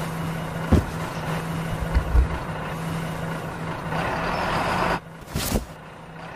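Truck engine running with a steady hum, cutting off about five seconds in, followed by a brief whoosh.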